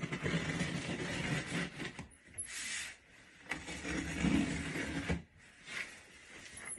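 Large cardboard shipping box being worked open and shifted: cardboard scraping and rubbing in several stretches, with brief pauses between them.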